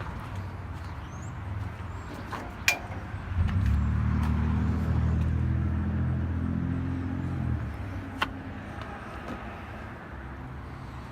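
A motor vehicle's engine running for about four seconds, starting a few seconds in and stopping abruptly near the middle, with a couple of sharp clicks before and after it.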